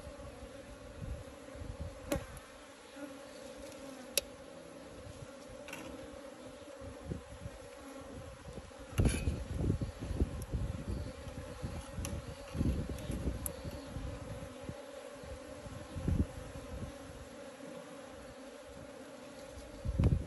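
Honeybees buzzing steadily around the hive, with a few light clicks and low thumps of handling and wind on the microphone.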